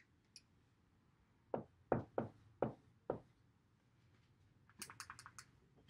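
Dry-erase marker tapping and knocking on a whiteboard as a number is written: five light knocks spread over about a second and a half, starting about a second and a half in. A quick run of fainter clicks follows near the end.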